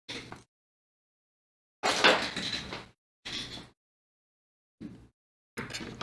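A metal hand tool scraping the solder pads of a laptop motherboard at the charging-port footprint, in several short strokes with pauses between, cleaning the pads so the new USB-C port can make connection.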